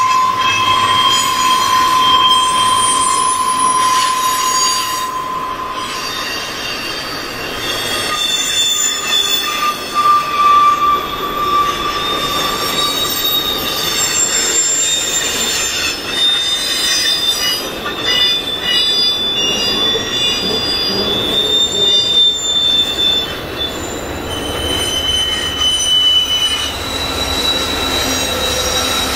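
Intermodal freight train's steel wheels squealing against the rail as the cars roll past, several high tones shifting and changing over the steady running noise of the train.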